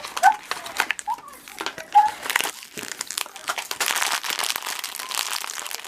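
Toy packaging crinkling and crackling as it is torn and pulled open by hand, with irregular clicks and a denser stretch of crackling past the middle.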